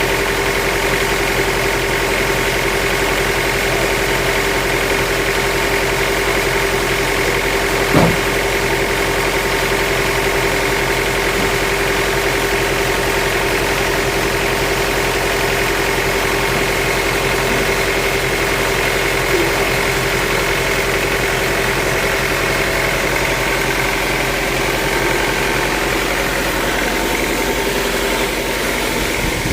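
Sawmill machinery running steadily at an even pitch, with one sharp knock about eight seconds in.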